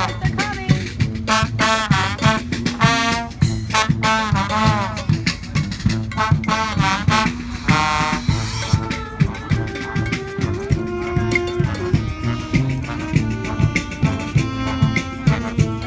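Street brass band playing an up-tempo dance groove: horns over a steady drum beat. The horns play repeated swooping phrases, then change to held notes about nine seconds in.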